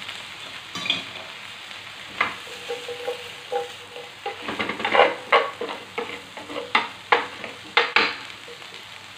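Vegetables and chopped garlic and onion sizzling in a ridged grill pan over a gas burner. A wooden spatula stirs them and the pan is tossed, giving a run of sharp knocks and scrapes from about two seconds in until near the end.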